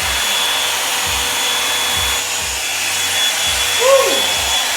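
Revlon One-Step hot-air brush dryer running steadily, blowing air with a thin steady whine. A brief pitched sound rises and falls about four seconds in.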